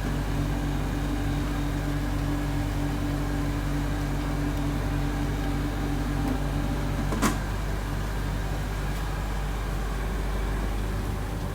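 Blower and pumps of a gold-refining acid-fume filter machine running steadily with a low electric hum. A higher tone in the hum stops about seven seconds in, followed by one sharp click.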